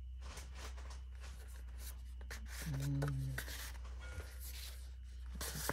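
Printed paper sheets being shuffled and handled, with irregular rustling and sliding strokes. A brief voiced murmur comes about halfway through, over a steady low hum.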